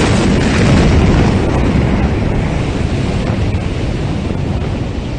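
Roar and rumble of the Beirut port ammonium nitrate explosion: its blast overwhelms the microphone with a dense, loud roar that slowly fades.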